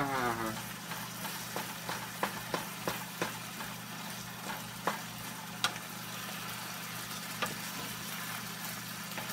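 Ground bison and onions frying in a pan with a steady sizzle, with scattered clicks and scrapes as a wooden spatula stirs the meat against the pan, over a steady low hum.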